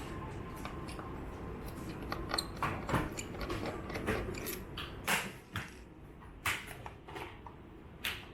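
Irregular clicks, taps and short scrapes of small hard parts being handled during work on an all-in-one PC's internals, with a few sharper clicks spread through.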